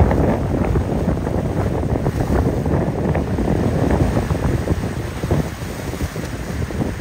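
Wind buffeting the microphone over the rush of breaking waves and surf, with a motor yacht plowing through the chop and throwing bow spray.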